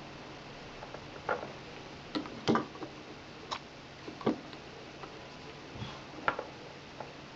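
Light, irregular clicks and taps from a Zippo lighter and its insert being handled during refuelling, about nine in all, the loudest about two and a half seconds in.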